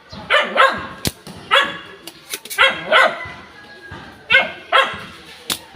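A dog barking repeatedly, about eight short barks in irregular bursts, with a couple of sharp clicks between them.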